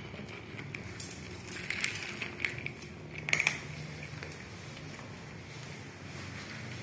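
Kittens crunching dry kibble from a plastic tray, with crisp clicks and clatter of pellets, busiest between about one and three and a half seconds in and loudest near three and a half seconds.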